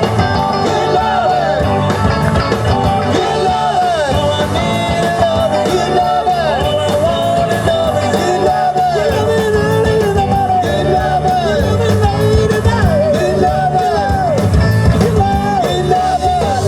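Live rock and roll band playing at full volume, with a lead vocal over electric guitar, bass and drums.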